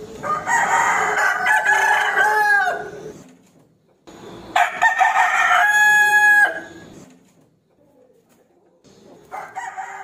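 Rooster crowing: two long crows, each ending in a held note that drops off, with a third crow starting near the end.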